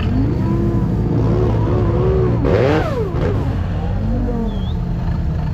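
Engine of a Suzuki-based off-road prototype buggy running under load, revved up and down repeatedly, with a louder surge about two and a half seconds in.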